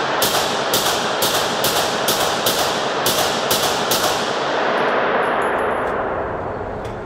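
A 3D-printed CZ Scorpion 9mm carbine firing a string of about ten quick shots, a little over two a second, its first test-firing with the gun cycling on every shot. The shots echo in an indoor range, and the ringing dies away over about two seconds after the last shot.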